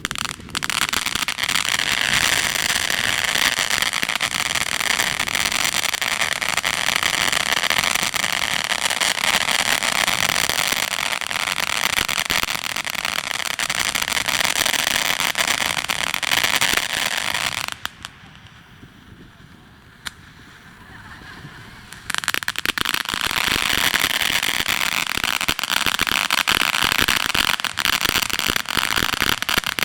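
Ground firework fountains burning with a steady, dense hiss and crackle for about seventeen seconds. They die out, and after a few quieter seconds a second set lights and burns on with the same hiss and crackle.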